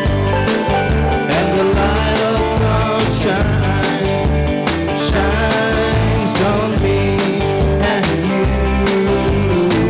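Live worship-band music with a steady beat, played on electric guitar and keyboard.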